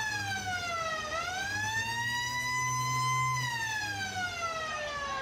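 A siren-like wail: one tone that falls in pitch, rises again about a second in and holds, then slides slowly down through the second half.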